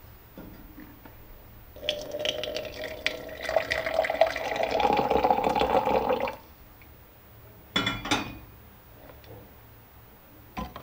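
Liquid poured into a cup or glass for about four seconds, the pitch rising as it fills. A short clink or clatter follows a couple of seconds later.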